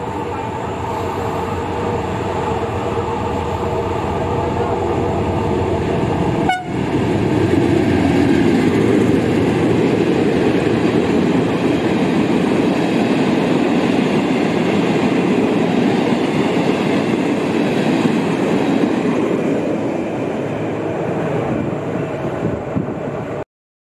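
Malayan Railway freight train with diesel locomotives and a short rake of empty BCF flat wagons rolling past: a loud, steady rumble of steel wheels on the rails. For the first six seconds a steady hum of several tones sits over the rumble; after a brief drop about six and a half seconds in, the wagons rumble on until the sound cuts off suddenly near the end.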